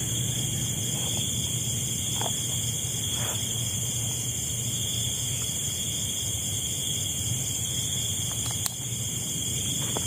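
A steady night chorus of insects trilling at high pitch, with a low hum underneath. One sharp click comes near the end.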